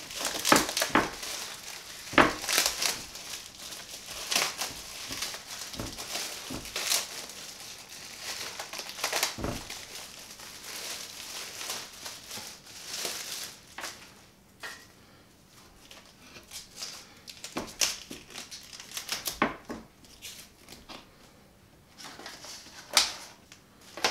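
Plastic wrap crinkling and crackling as it is pulled off a head of cauliflower, in dense irregular rustles that thin out to scattered crackles after about halfway, with a louder crackle near the end.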